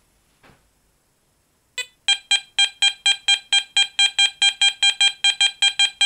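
Garrett ACE Apex metal detector giving its target tone: short, ringing, high beeps repeated about four times a second as a copper 1-kopeck coin is passed over the coil, starting about two seconds in. It is a high-conductivity (non-ferrous copper) response.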